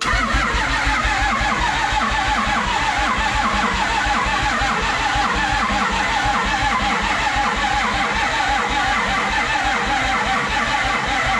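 A loud vehicle engine running with a fast, even pulse, cutting in and out abruptly.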